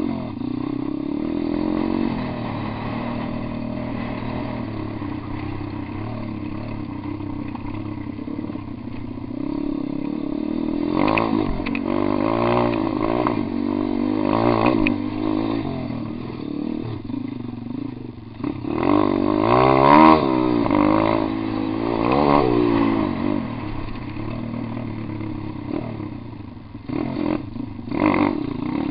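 Pit bike engine running as the bike is ridden along a dirt trail. It is fairly steady at first, then revs up and down in repeated rising and falling sweeps from about ten seconds in, and again near the end.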